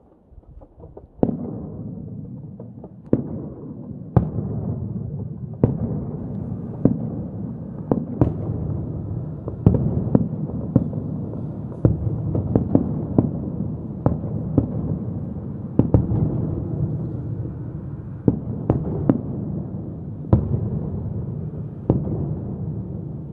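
Aerial firework shells bursting in a display: sharp bangs about once a second over a continuous rumble and crackle, starting about a second in.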